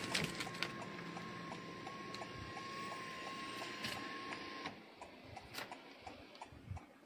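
Honda City's electric sunroof motor running as the roof slides open after a one-touch press: a steady whine with a quick, even ticking, stopping about four and a half seconds in as the roof reaches the end of its travel.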